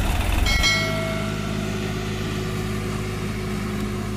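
Swaraj 744 FE tractor's diesel engine running, loud and heavy at first, then changing abruptly about half a second in to a steadier, somewhat quieter running. A brief ringing tone sounds at the change.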